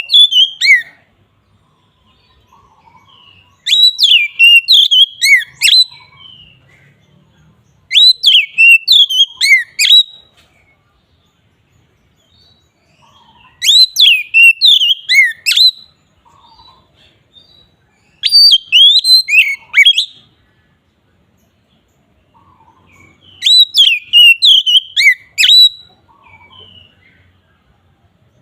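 Oriental magpie-robin (kacer) singing in the full, open-voiced 'ngeplong' style: loud, quick whistled phrases of rising and falling notes, each about two seconds long, repeated every four to five seconds with faint chirps in between.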